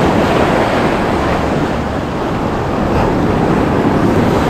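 Sea surf washing steadily on the shore, with wind buffeting the microphone.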